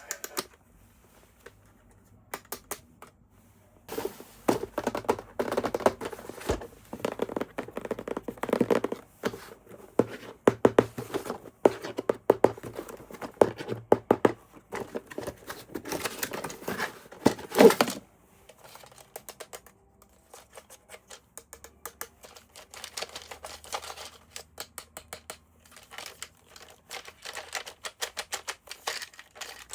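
Hands handling a plastic toy and its packaging: rapid runs of small plastic clicks and taps with some rustling, dense for the first half and lighter, sparser clicking in the second half.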